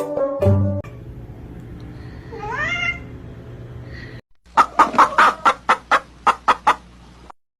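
An animal, most likely a pet, gives one short call that rises in pitch, then a quick run of about a dozen sharp, clipped calls lasting nearly three seconds.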